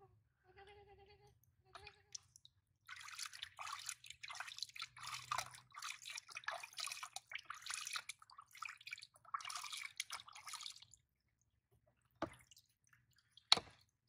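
Water splashing in a plastic basin as a baby monkey is bathed, hand scooping and pouring water over it in uneven splashes for about eight seconds. Before the splashing, a few short high whimpering calls from the baby monkey; two sharp clicks near the end.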